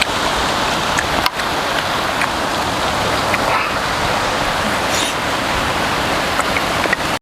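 Steady hissing, rushing noise with a few faint clicks scattered through it.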